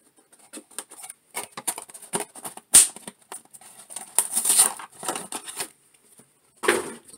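Hands handling a cardboard action-figure box: a string of light scrapes, taps and rustles, with one sharp knock just under three seconds in and longer rustles near the middle and the end.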